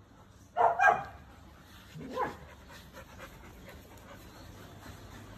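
Standard poodle barking while playing: two quick loud barks about half a second in, then a weaker single bark at about two seconds.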